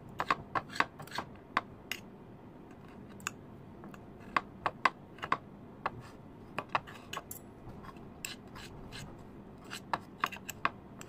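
Two metal forks clicking and scraping against a plate while shredding cooked meat: irregular clusters of sharp clicks with pauses between them.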